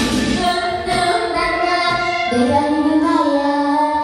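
A young girl singing a song into a microphone over accompanying music, holding several long notes.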